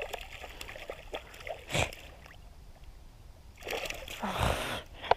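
A hooked fish jumping and thrashing at the surface on the line, splashing the water: a short splash a little under two seconds in and a longer, louder bout of splashing near the four-second mark. A sharp click comes just before the end.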